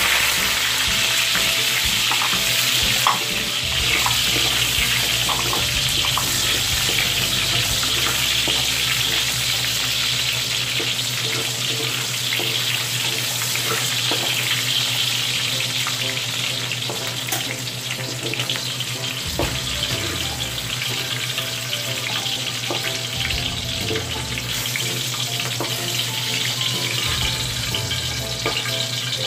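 Bell pepper pieces sizzling in hot oil in an aluminium wok, stirred and scraped with a wooden spatula, with occasional light taps of the spatula on the pan.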